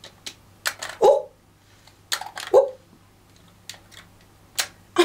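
Hard plastic clicks and taps from a YSL Rouge Sur Mesure lip colour device as its small colour cartridges are handled and pulled from their slots. Two duller pops come about one and two and a half seconds in.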